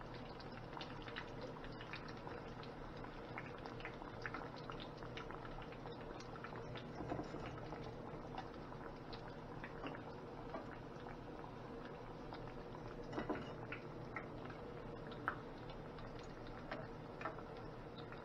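Breaded fish nuggets deep-frying in hot oil: a steady bubbling sizzle full of small crackles. A few sharper clicks stand out in the second half.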